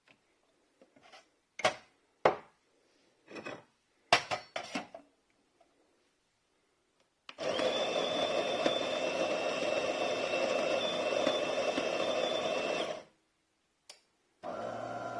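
De'Longhi Magnifica S automatic espresso machine: a few clicks and knocks, then its built-in coffee grinder runs steadily for about five and a half seconds and stops abruptly. After a single click, a steadier humming machine sound, likely the pump starting the brew, begins near the end.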